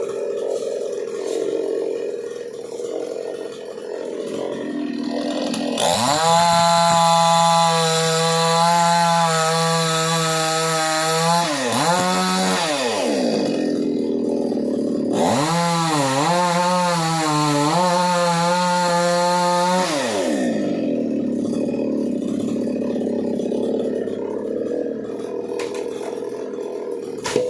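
Chainsaw engine running at low speed, then revved high twice for about six seconds each, the pitch dropping and wavering in between, before settling back to a lower steady running.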